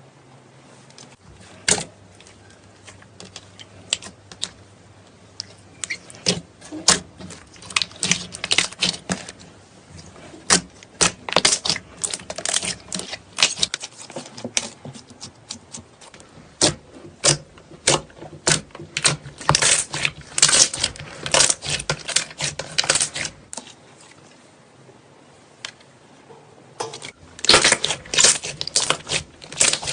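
Slime being pressed and squeezed by hand, giving rapid sticky clicks, crackles and pops in dense runs, with a short lull about three-quarters of the way through.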